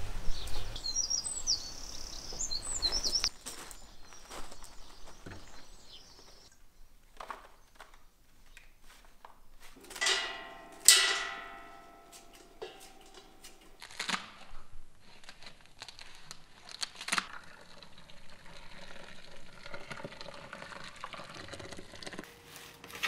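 Small garden birds chirping for the first few seconds, then leaves being handled and pushed into a stainless steel pot, with a loud metallic clang that rings out about eleven seconds in and a few knocks after it. Near the end, water is poured from a kettle into the pot of leaves.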